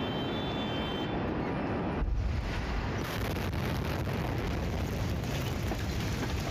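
Phone-microphone recording of the ammonium nitrate explosion at the port of Beirut. Under a steady noisy rumble, a sudden deep boom arrives about two seconds in, followed by a continuous roar as the blast reaches the camera and shakes it.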